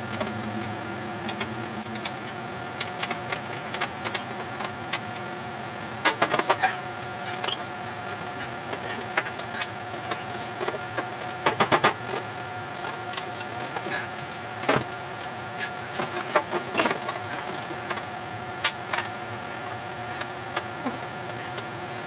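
Metal clicks and clinks of hand tools and fasteners while the seat is bolted back onto a WheelHorse lawn tractor's steel body, with a short run of quick clicks about halfway through. A steady hum runs underneath.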